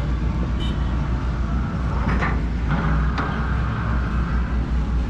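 Backhoe excavator working: its diesel engine runs with a steady low rumble, a higher steady tone joins for about two seconds midway, and there are a couple of sharp knocks.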